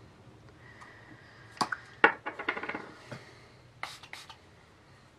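Small clicks and light knocks of makeup products and packaging being handled, with a quick rattling run of clicks about two seconds in.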